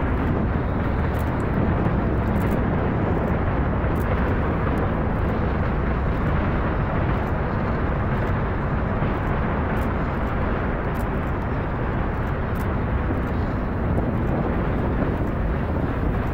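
The SLS core stage's four RS-25 hydrogen-oxygen rocket engines firing together in a static hot-fire test, a steady low rumble that holds even throughout, about two minutes into the eight-minute burn.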